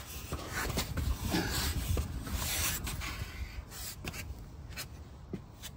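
Scraping and rubbing of a person's body and clothing on a concrete floor as he slides out from under a car, with a few sharp clicks near the end.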